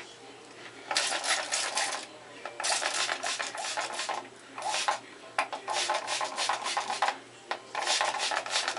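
Water spray bottle misting hair to wet it down before twisting, in about five hissing bursts, each lasting from half a second to a second and a half.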